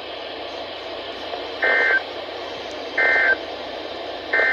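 Three short bursts of warbling EAS data tones (the SAME End of Message code) over weather-radio static, about one and a half seconds apart, marking the end of the alert broadcast.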